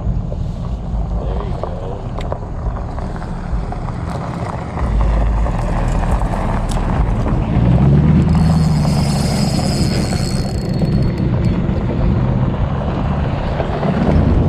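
Wind buffeting the microphone with a low rumble, and a passing vehicle whose engine and tyre whine swell from about halfway through and fade a few seconds later.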